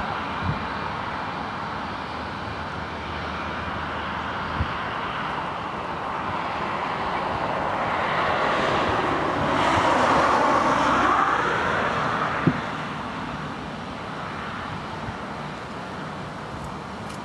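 Two IAE V2522-A5 turbofan engines of a British Airways Airbus A319 running at taxi power as the airliner rolls past. The jet noise swells to its loudest about ten seconds in, with a whine that dips and rises in pitch, then eases off as it moves away.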